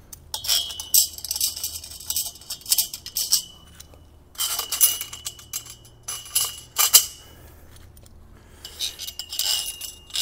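Small steel bolts and washers clinking and jingling against a thin stainless-steel tubular cart leg as they are handled and fitted by hand, in several short bursts.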